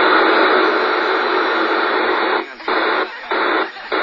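Shortwave radio receiver putting out loud, steady static hiss between stations while scanning. The hiss cuts out briefly three times in the second half.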